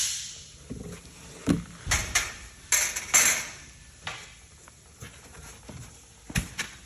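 Loose parts and their packaging being handled and sorted: scattered clinks and knocks of hard pieces set down, with a few short rustles.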